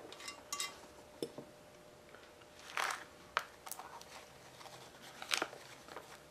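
Metal hand tools clinking and scraping: a wrench and screw extractor lifted off a seized stud and other tools handled, in about eight separate clicks and short rattles, the loudest about three seconds in and again just past five seconds.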